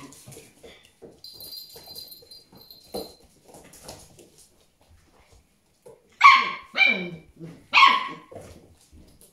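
A collie puppy barking at play: three short, high yips, the first two close together about six seconds in and the third a second later.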